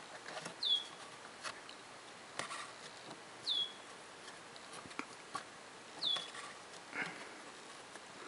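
New cabin air filter being pushed and worked back and forth into its plastic housing behind the glove box of a 2010 Hyundai Elantra, with scattered clicks and rustles. Three short, high squeaks that drop in pitch come about every two and a half seconds.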